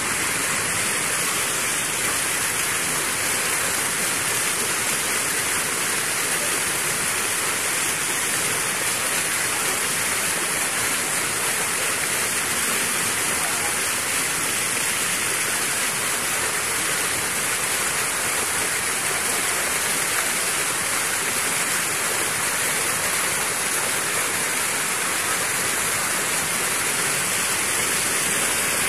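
Fast floodwater rushing and churning through a shallow stream, a steady unbroken water noise.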